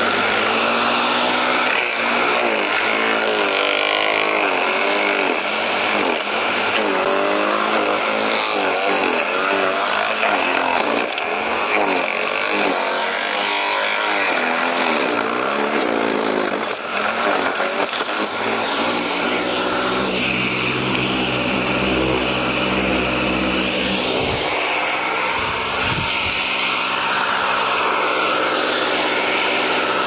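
Electric garden shredder chewing up branches fed into its hopper, its motor pitch dipping and recovering under the load. From about two-thirds of the way in it runs steadier.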